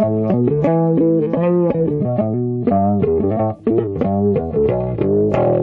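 Background music with guitar and bass.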